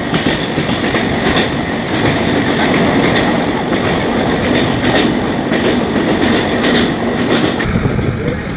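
Jharkhand Express passenger train running through a tunnel: a loud, steady roar of wheels on rails, with repeated clacks over the rail joints.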